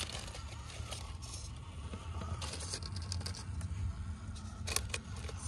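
Small-scale RC rock crawler (Hobby Plus CR18P EVO PRO) clambering over boulders: its tyres and chassis tick, scrape and clatter against the rock, with a sharper knock near the end, over a steady low rumble.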